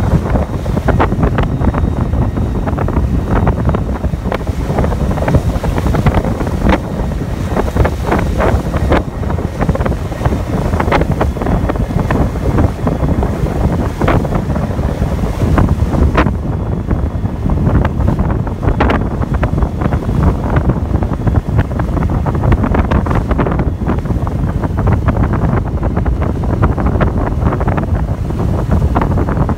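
Strong wind buffeting the microphone, with the rush and splash of choppy sea around a boat under way.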